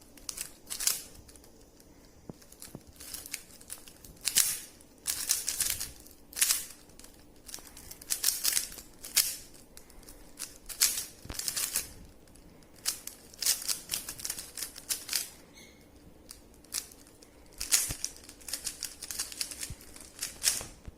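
A 3x3 Rubik's cube being turned fast in a speed solve: its plastic layers clicking and clacking in quick, irregular flurries of turns, with short pauses between them.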